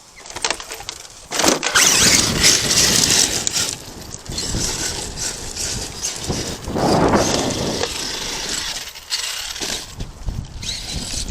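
Arrma Kraton 8S RC truck driving over loose dirt and gravel, a noisy rush of tyres and scattering gravel that comes in several surges.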